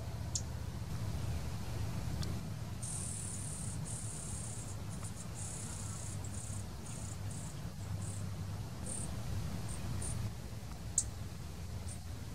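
An insect's high, buzzing trill in broken bursts of varying length, starting about three seconds in and dying away about ten seconds in, over a steady low rumble. A couple of short, sharp high ticks sound near the start and near the end.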